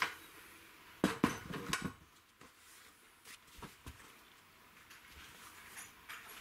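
Light knocks and clinks of small metal parts being handled: a sharp click at the start, a quick cluster of knocks about a second in, then a few scattered fainter clicks.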